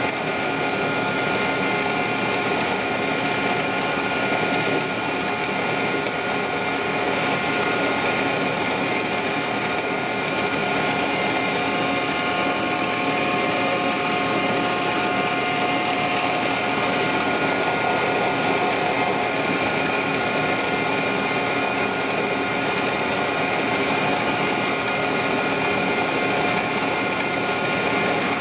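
Drill press running at a high speed, a steady motor whine with several held tones, as a small bit drills spoke holes into a wooden wheel hub.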